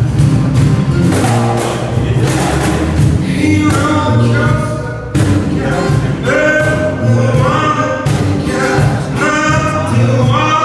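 Live acoustic band: three acoustic guitars strummed over a cajon beat. A male lead voice comes in singing about four seconds in.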